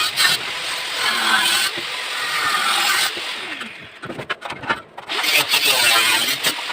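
Engine noise that swells and fades twice, with its pitch gliding up and down.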